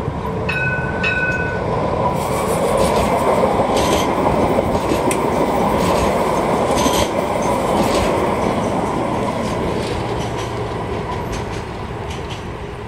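Alstom Citadis 305 light rail tram passing close by, a rumble of steel wheels on rail that swells as it goes past and then fades, with scattered sharp clicks. Two short high-pitched tones sound near the start.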